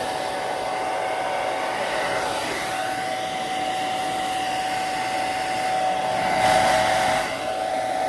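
Hand-held hair dryer blowing at full speed while drying a child's hair: a steady rush of air with a constant whine from the motor, briefly louder near the end.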